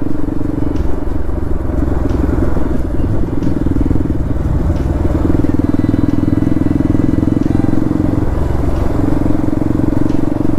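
Bajaj Pulsar NS200's single-cylinder engine running steadily under the rider, with a steady rush of wind and road noise. The engine note eases off briefly twice, about four and eight seconds in.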